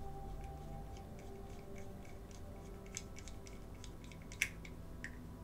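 Light scattered metallic clicks and ticks of a 2 mm hand tap being turned to cut a screw thread into a diecast model's rivet post, with one sharper click about four seconds in.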